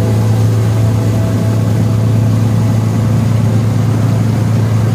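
Inboard diesel engine of a wooden abra water taxi running at a steady cruising speed, a constant low drone.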